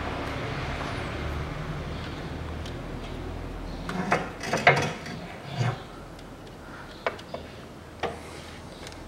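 Knocks and clunks of metal and rubber parts being worked in a car engine bay as the torn front engine mount is pulled out: a cluster of clunks about four to five seconds in, then a few sharp clicks. A steady rushing noise in the background fades over the first few seconds.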